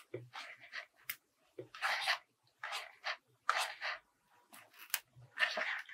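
A handmade paper clock decorated with plastic drinking straws being handled, its paper and straws rustling and rubbing in a series of short scratchy strokes with a few light clicks.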